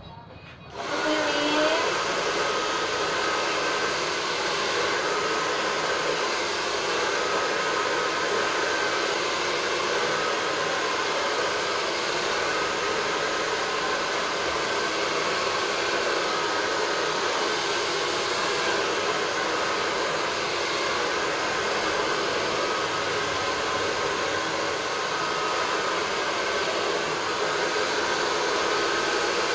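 Handheld hair dryer switched on about a second in, spinning up briefly, then running steadily as it blows on wet hair, a steady rush of air with a faint whine.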